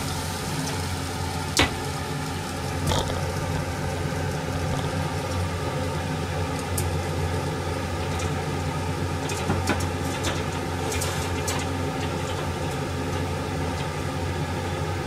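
Steady low hum and hiss of running kitchen equipment at the stove, with a couple of light clicks about one and a half and three seconds in.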